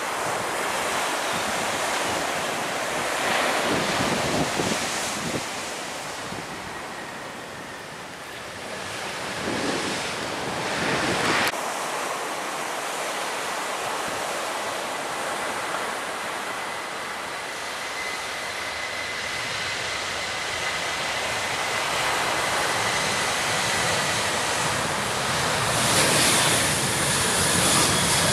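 Surf washing on the shore and wind buffeting the microphone, with a faint steady jet-engine whine in the middle and airliner engine noise building near the end.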